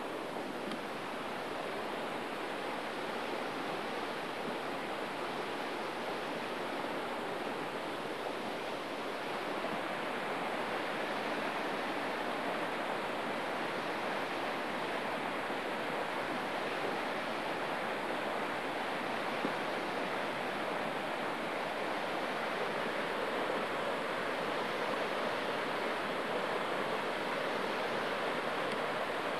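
Steady rush of flowing river water, an even noise that holds throughout.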